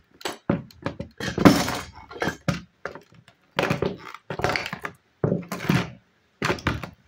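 Football cleats stomping on a plastic toy bus on a plywood floor: a series of irregular thuds with plastic cracking and crunching underfoot, the loudest about a second and a half in.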